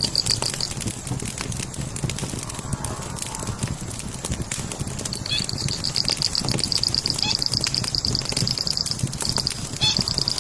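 Campfire crackling with frequent small pops. A high, rapidly pulsing trill comes in about five seconds in, lasts about four seconds, and returns briefly near the end.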